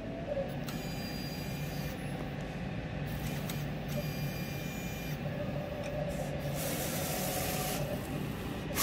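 Roland SP-series wide-format inkjet printer running its vertical alignment test print: a steady motor hum, with stretches of hiss as the print head carriage makes its passes.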